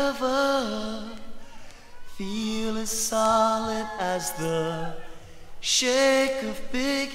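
A singing voice holding long, slightly sliding notes in phrases a few seconds apart, with little else audible behind it, from the opening of a 1985 new-wave rock song.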